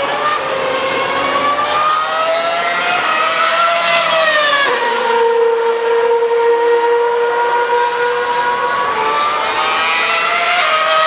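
A 2013 Formula One car's 2.4-litre V8 engine at high revs, its pitch climbing for about four seconds, dropping sharply, holding steady for about four seconds, then climbing again near the end.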